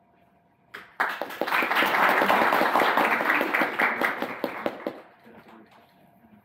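Audience applauding: a stray clap just before a second in, then a burst of many hands clapping that dies away about four seconds later.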